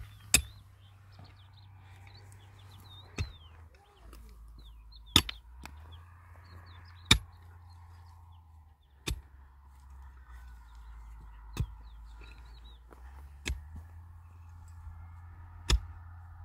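Pickaxe blows striking hard, stony soil, about one sharp hit every two seconds, eight in all. Birds chirp faintly between the blows.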